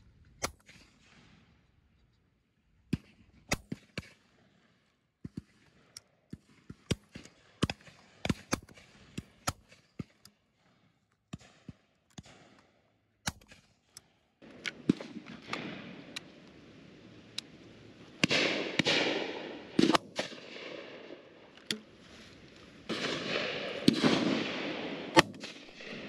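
Shotguns firing along a driven pheasant line: a rapid, irregular string of sharp reports, many of them faint and distant. From about halfway a loud rushing noise swells up twice with more shots through it, the loudest shot near the end.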